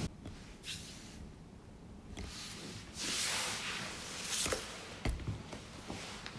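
Cats close to the microphone: a few soft clicks and taps, and a short breathy hiss about three seconds in.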